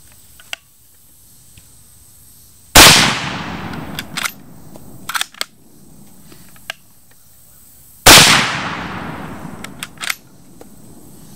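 CZ 527 Carbine bolt-action rifle in 7.62x39 firing Brown Bear steel-cased 125-grain soft points: two shots about five seconds apart, each with a long echo. After each shot comes a quick run of clicks as the bolt is worked to chamber the next round.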